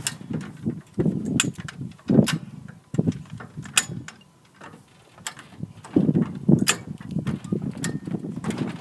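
Wind buffeting the microphone in uneven gusts, with a sharp metallic click every second or so from a jack being worked to raise the mower carrier.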